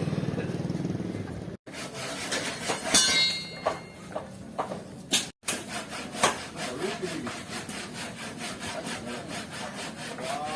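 Hand saw cutting wood in repeated strokes, with scattered knocks. A motorcycle engine runs for the first second and a half before it is cut off.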